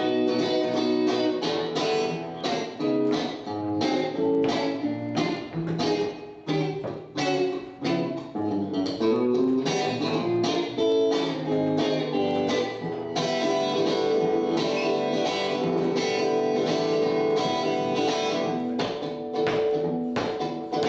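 Solo guitar playing an instrumental break: a busy run of picked and strummed notes, settling about two-thirds of the way through into held, ringing chords.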